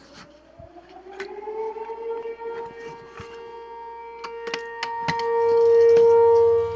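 A siren-like tone winds up over about two seconds, then holds one steady pitch and swells louder near the end, with scattered clicks over it.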